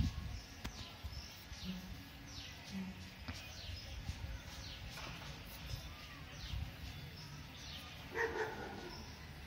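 Faint animal calls: repeated short, high, falling chirps throughout, and one louder, lower call about eight seconds in.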